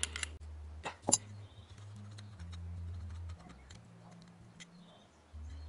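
An open-end wrench and a reassembled steel bicycle pedal handled by hand: a few sharp metallic clicks in the first second or so, then a run of faint light ticks, over a faint low hum.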